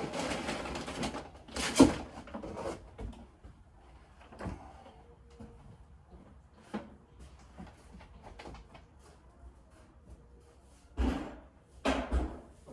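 Scattered knocks and thumps: a rustling stretch with a sharp knock about two seconds in, a few faint clicks, then three heavier thumps near the end.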